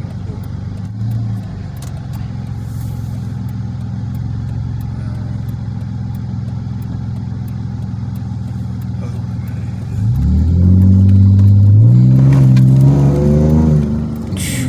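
Dodge Magnum's engine running steadily while driving. About ten seconds in it revs up hard under acceleration, climbing in pitch with a sudden step up near twelve seconds, then eases off shortly before the end.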